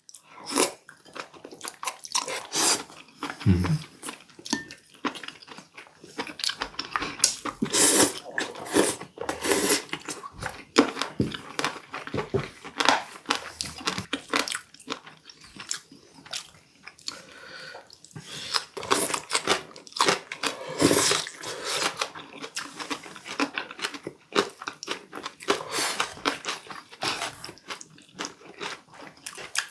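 Close-up chewing and crunching of warty sea squirt (omandungi), many short crisp crunches as the firm, rubbery flesh is bitten and chewed.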